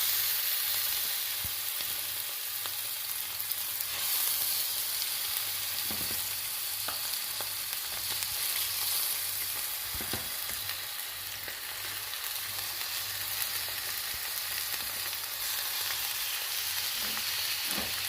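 Seasoned chicken thighs sizzling steadily in hot oil in a frying pan, skin side down, searing. A few faint clicks are heard now and then.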